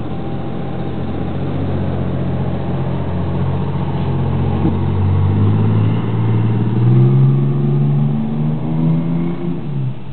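Fire engine's diesel engine accelerating away from a standstill, heard from inside a car. Its pitch climbs in steps, rising, dropping back and rising again through the second half as it gathers speed.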